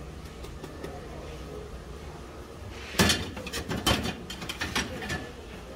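Metal tongs clattering on a steel baking tray as a baked bread is set down: one sharp clank about three seconds in, then a run of lighter clicks and taps lasting about two seconds, over a steady low background hum.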